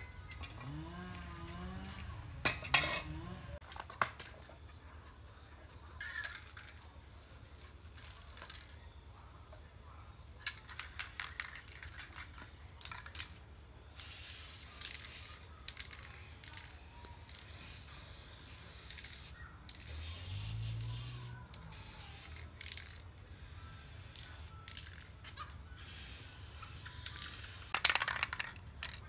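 Hands-on work on an old rusted bicycle: scattered metal clinks and taps, with a cluster of quick clicks in the middle, and a few spells of aerosol lubricant spray hissing.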